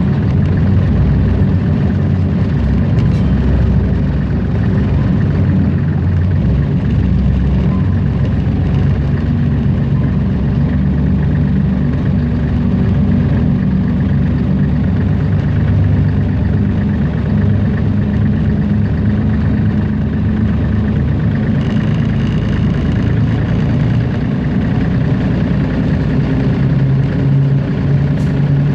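Hunslet narrow-gauge diesel locomotive's engine running steadily as the loco travels along the line, its note shifting slightly about two-thirds of the way through.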